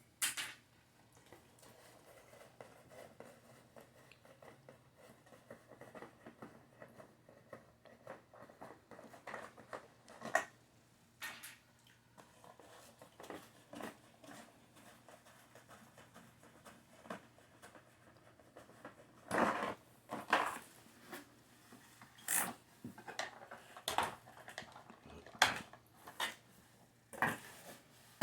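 Hands handling a plastic toy RC truck and its small parts: scattered plastic clicks and rustles, sparse at first and busier and louder through the last third.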